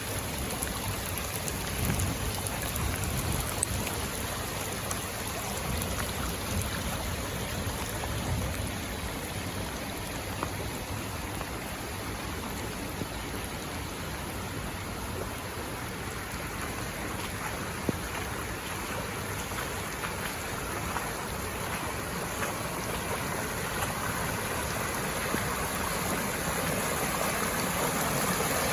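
Steady rain falling, with storm runoff water rushing over the ground, the flow growing louder near the end.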